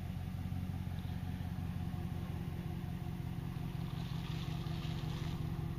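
Pickup truck engine running steadily at low revs, a low even hum.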